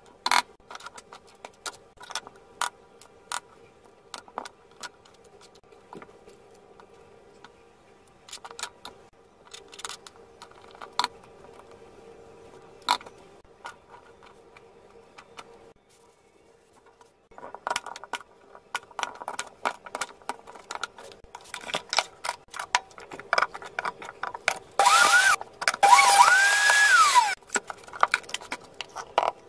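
Metal spoon clicking and scraping as soft custard apple pulp is scooped out and dropped with fruit pieces into a plastic blender cup, over a faint steady hum. Near the end come two loud rushing bursts, each carrying a tone that rises and falls.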